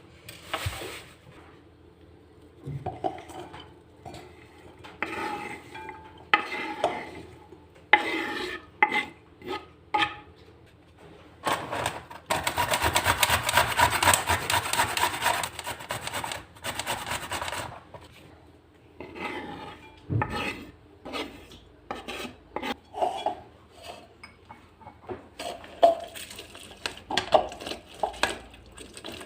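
Kitchen work sounds: a run of scraping and rubbing strokes with knocks and clinks of dishes and utensils, and about five seconds of dense, steady noise starting some twelve seconds in.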